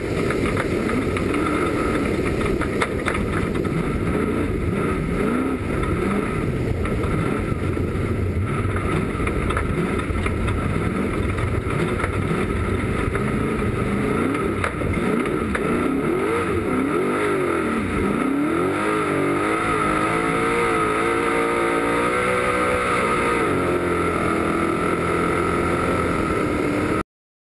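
Desert trophy truck's engine under hard running on dirt, its pitch rising and falling with throttle and gear changes, over a steady rush of wind and road noise. The sound cuts off suddenly near the end.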